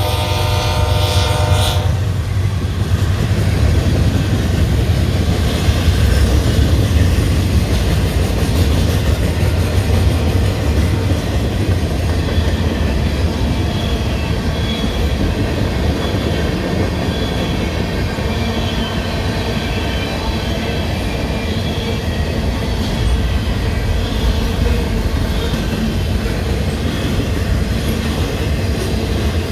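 Freight train horn from the BNSF ES44C4 lead locomotives, cutting off about two seconds in. Then loaded tank cars, covered hoppers and boxcars rolling past with a steady low rumble, clickety-clack of wheels over rail joints and a faint high wheel squeal.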